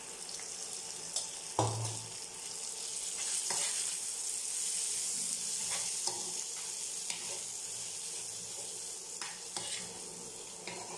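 Cooked matta rice sizzling in hot oil and fried onion masala as it is stirred and tossed with a steel spoon. The spoon clicks and scrapes against the pan now and then, with one louder knock about one and a half seconds in.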